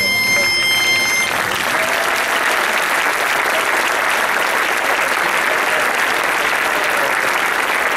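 Audience applauding: a steady, dense clapping that swells in about a second in, right after a held high-pitched tone cuts off.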